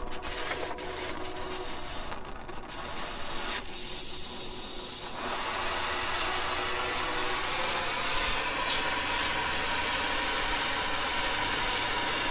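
Brazing torch flame hissing steadily while copper line set is brazed to the condenser's service valve, getting louder about five seconds in, with a few light clicks early on.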